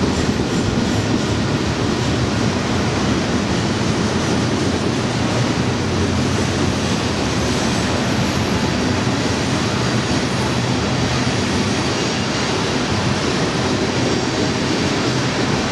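Freight train cars rolling past at a steady speed: a continuous rumble of steel wheels on the rails.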